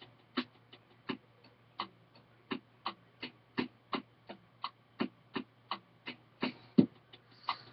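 Slow, irregular typing on a computer keyboard: short sharp key clicks, about three a second, over a steady low mains hum.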